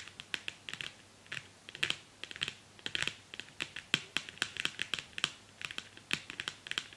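Long fingernails tapping on a small green-framed chalkboard: quick, irregular clicks, several a second, often in little rapid runs.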